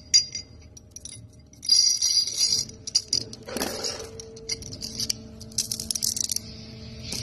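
Loose steel bearing balls clinking and rattling as hands scoop them and drop them into a ball-bearing ring, in several short bursts of bright metallic jingling.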